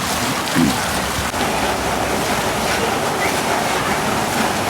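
Floodwater rushing past in a steady, unbroken wash of water noise.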